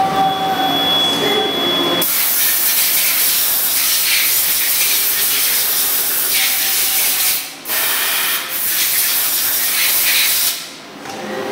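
Compressed-air blow gun hissing loudly as it blasts chips and coolant off a CNC lathe chuck. It starts abruptly about two seconds in, cuts out briefly in the middle and stops shortly before the end.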